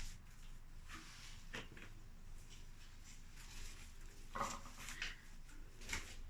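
A few faint, short rustles and soft knocks, about five spread through, over a low steady background hum.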